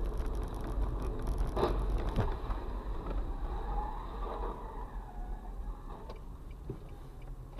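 Car driving, a steady low rumble of engine and road noise, with two or three sharp knocks about two seconds in; the noise slowly fades toward the end.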